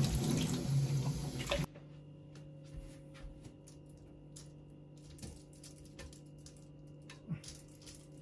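Tap water running into a stainless steel sink and splashing over dishes being rinsed, stopping abruptly about a second and a half in. After that, a steady low hum with a few faint clicks of plastic clothes pegs as towels are clipped onto a hanger.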